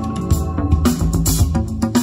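Recorded pop/rock-style music with a steady drum beat and bass, played from a CD through a Marantz PM500 DC amplifier and Bose Freestyle speakers in a playback sound test.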